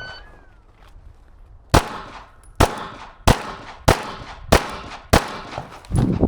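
A shot timer's short electronic beep, then six pistol shots fired at a steady pace of a little under a second apart, starting about two seconds in. A duller, lower rush of noise follows near the end.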